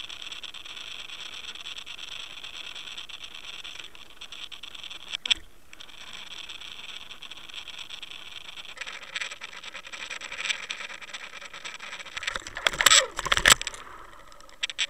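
Water sound picked up by an underwater camera towed behind a slow-trolling boat: a steady high whine with water rushing past. It grows noisier about nine seconds in, and near the end comes a cluster of sharp knocks and scrapes as the lure and camera reach rocky bottom.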